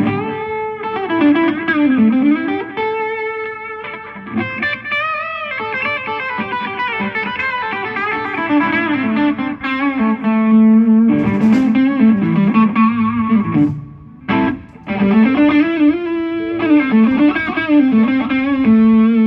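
Electric guitar played through an amplifier at a sound check: a melodic line with bending, sliding notes, and a brief break about two-thirds of the way through.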